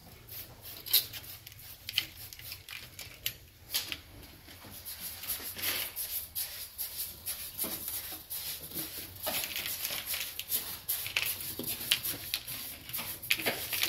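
Tip of a small mason's trowel scratching and scraping through wet cement, carving grooves into a freshly stamped wall. It comes in short, irregular strokes that grow busier after a few seconds.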